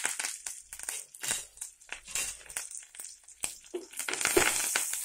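Curry leaves and dried red chillies spluttering and crackling in hot oil with mustard seeds and chana dal as a tempering fries. The crackle eases midway and picks up again as a spoon stirs the pan.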